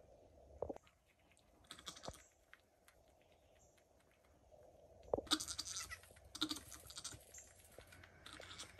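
Nigerian Dwarf doe nosing and licking her newborn kid, with crackly rustling of the straw and wood-shavings bedding. A couple of short, low goat bleats come about five seconds in and again a second later.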